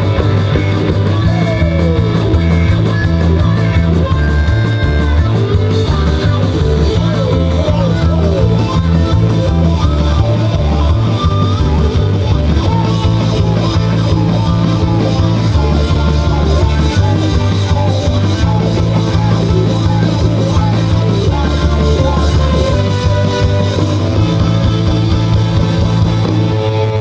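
A live rock band playing loud, a bass line stepping between held notes with electric guitar over it.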